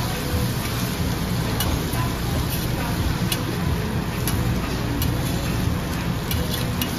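Food sizzling on a teppanyaki steel griddle, with metal spatulas scraping and clicking against the plate several times.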